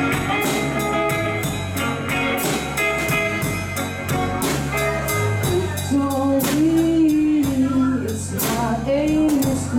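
Live rock band playing: distorted electric guitar, electric bass and a Ludwig drum kit keeping a steady beat, with a voice singing over them from about six seconds in.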